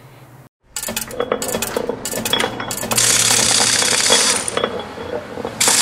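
Logo-animation sound effect of gears and ratchets: rapid metallic clicking and clinking that builds into a loud, dense mechanical clatter from about three seconds in.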